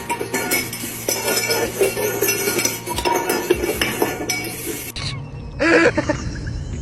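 Rapid clinking and rattling of tableware for about five seconds, then an abrupt cut and a single short animal call near the end.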